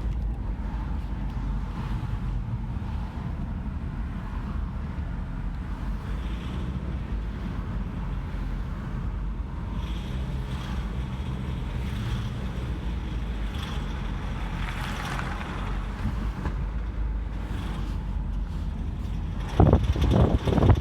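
A car making a gurgling noise over a steady low engine rumble, with a few louder bumps near the end.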